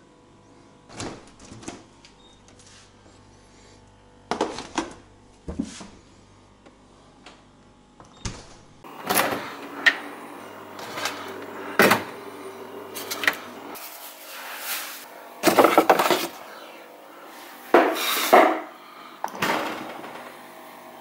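Refrigerator being opened and food containers taken out and handled: a few soft clicks at first, then a busy run of clunks, knocks and rustles in the second half. Under the first two-thirds runs a low steady hum that stops about fourteen seconds in.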